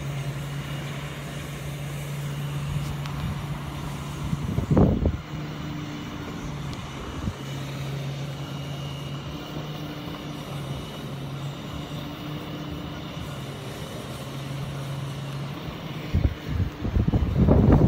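Truck-mounted crane's engine running with a steady low hum that dips or shifts a few times. Wind buffets the microphone in a short gust about five seconds in and in stronger gusts near the end.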